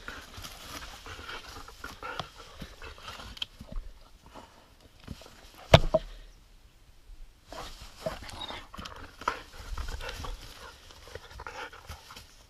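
A dog panting as it plays with a stick, with irregular short bursts of breath and movement and one sharp knock about six seconds in.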